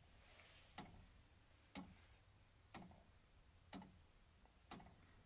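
Wooden recoil escapement with notched roller pallets and a pinwheel escape wheel, running and ticking faintly and evenly about once a second, five ticks in all, each a pin meeting a roller pallet.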